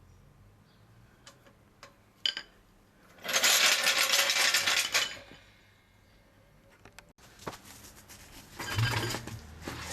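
A few light clicks, then about two seconds of loud metallic rattling and scraping as a car jack is lowered and pulled out from under the car; more clattering near the end.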